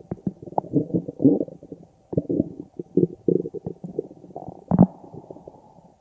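A stomach growling: a run of irregular gurgles and short pops, with the loudest gurgle near the end.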